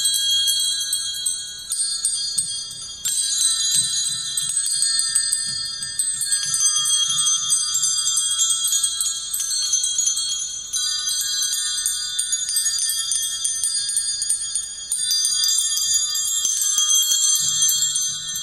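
A sound-art collage of many small bells or chimes ringing together in a dense, high jingling layer. The layers cut abruptly a few times, and the sound begins to fade near the end.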